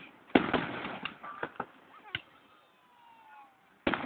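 Fireworks going off: a loud bang shortly after the start that fades out, several sharp cracks, then a quieter stretch with a faint falling whistle, and another loud bang near the end.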